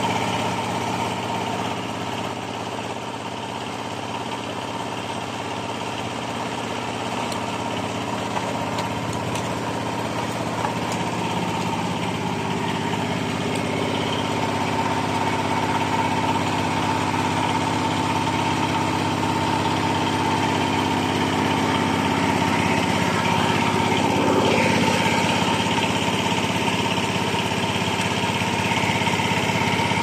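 Small 8-horsepower diesel engine of a plastic baler's hydraulic power unit running steadily at idle, growing slightly louder over time.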